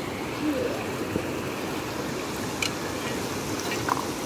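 Steady rush of a shallow river flowing over stones and gravel, with a couple of faint ticks and distant voices now and then.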